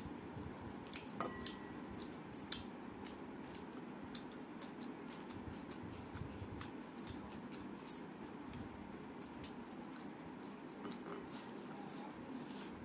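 Fingers mixing rice with dal on a steel plate: soft squishing with many scattered light clicks and clinks.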